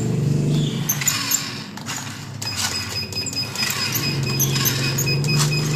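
Treadmill running with a remote-control toy car driving on its belt, while the treadmill speed is being turned up: a steady low hum with scattered clicks and knocks. A high steady whine comes in about two and a half seconds in.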